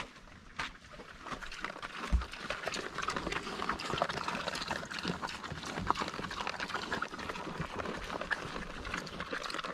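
Pigs eating: a dense run of small crunching and smacking noises that grows busier after the first second or two.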